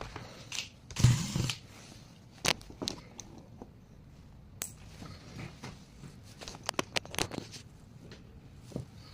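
Irregular clicks, taps and a short clatter about a second in, typical of small plastic and metal laptop parts and tools being handled during disassembly.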